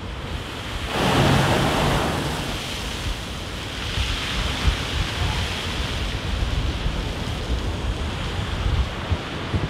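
Rough sea waves breaking against the sea wall: a crash of spray swells up about a second in, followed by the steady rush of surf. Gusting wind buffets the microphone throughout.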